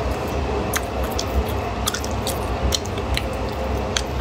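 Close-miked chewing of a beef-filled baked flatbread (huoshao) soaked in chili oil, with irregular sharp mouth clicks over a steady low hum.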